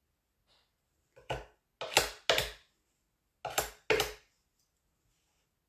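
Five short knocks of hands and tools on a wooden worktable: a single one, then two pairs.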